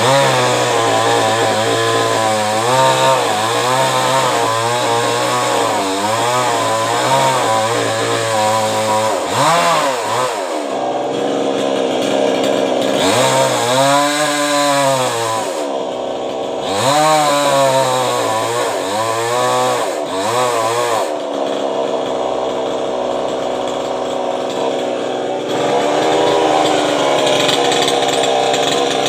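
Two-stroke chainsaw running hard, holding steady at first, then revving up and dropping back several times in the middle as it works through coconut palm wood, then steadier again near the end.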